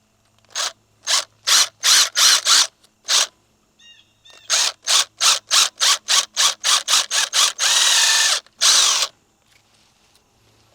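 Power drill run in short trigger bursts, drilling through the plastic door-harness plug for speaker wire: a first group of about seven bursts, a pause, then a quicker run of about ten, a longer run near the end and one last burst.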